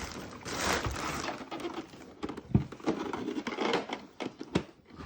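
Handling of a plastic toy toolbox and its packaging: rustling for about the first second, then a run of irregular plastic clicks and knocks as compartments are tried and opened.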